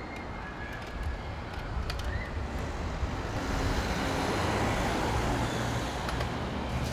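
City street traffic noise: a steady rumble of vehicles, swelling as one passes a little past halfway, with a few faint clicks.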